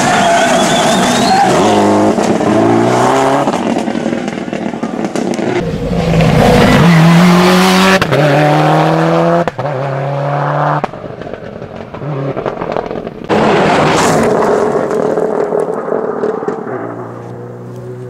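Rally cars driven hard on a tarmac stage, among them a Subaru Impreza WRX STI: engine notes climbing in steps through the gears and falling away on lifting off, in several short takes that cut abruptly one to the next.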